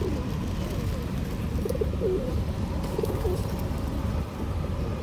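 Feral pigeons cooing, several short wavering coos, over a steady low background rumble.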